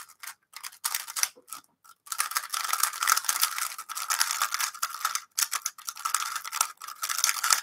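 3x3 speedcube, a Moyu Weilong WR, being turned fast by hand: rapid clicking and clacking of the plastic layers. A few scattered turns at first, then a fast, nearly unbroken run of turning from about two seconds in, with a short pause near five seconds.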